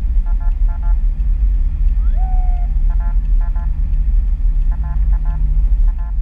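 Steady low rumble of a car driving, heard from inside the cabin. Clusters of short high beeps recur about every two seconds, and a brief rising whistle-like tone comes about two seconds in.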